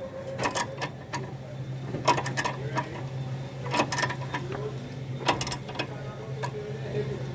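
Metallic clicking from a hand ratchet being worked in short strokes, in about five separate bursts, over a steady low hum.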